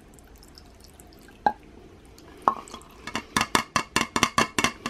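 Last drops of white vinegar dripping from a measuring cup into a glass mason jar. Two single plinks come first, then a quick run of about ten drips or taps, five or six a second, near the end.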